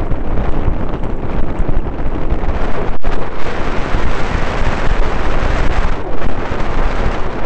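Wind buffeting the microphone of a camera on a moving mountain bike, with the tyres rumbling over a gravel forest road. The noise stays loud and even, with a very short cut-out about three seconds in.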